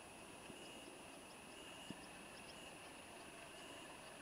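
Near silence: faint outdoor ambience with a high insect-like chirring that swells and fades about once a second, and a single soft tick about two seconds in.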